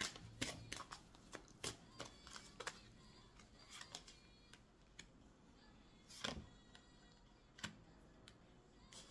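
Oracle cards handled over a cloth-covered table: a quick run of soft card flicks and clicks as the deck is shuffled in the first few seconds, then a few single slaps and taps as cards are drawn and laid down, the sharpest about six seconds in.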